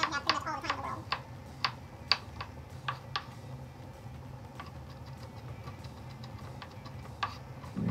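Kitchen knife chopping on a wooden cutting board: sharp, irregular taps, about two a second at first, then sparser, with a few more near the end.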